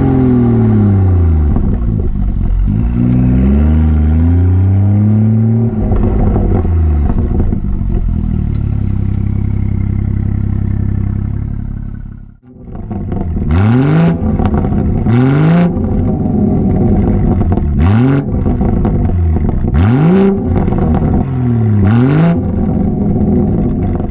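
BMW 340i's turbocharged straight-six engine through an M Performance Power and Sound Kit exhaust, heard close to the tailpipe. The engine revs rise and fall repeatedly. After a brief drop about halfway through come five quick rev blips, each starting with a short rush of noise.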